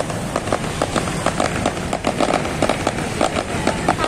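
Fireworks crackling in a rapid, irregular run of sharp pops, several a second, over the steady hum of motorcycle traffic.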